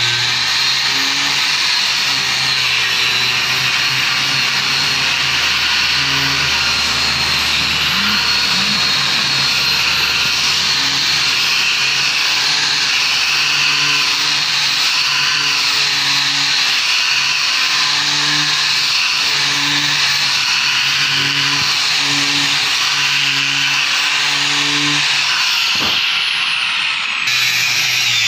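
Electric angle grinder fitted with a rubber-backed sanding disc running steadily, sanding the flat face of a wooden door frame: a continuous motor whine over the scrape of the abrasive on the wood.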